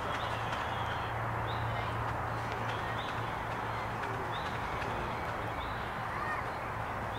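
7¼ inch gauge miniature steam locomotive hauling a passenger train, its running a steady sound with no letup, while small birds chirp repeatedly in the trees.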